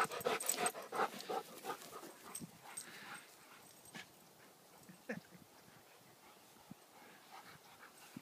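Dog panting quickly and close, about five breaths a second, fading out after about three seconds. Then quieter scattered sounds of dogs at play, with one short falling whine about five seconds in.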